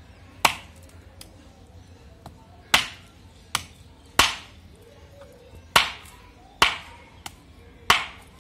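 Kitchen knife chopping down through a whole fish's strong single backbone onto a wooden chopping board: about seven sharp chops at uneven intervals, roughly a second apart.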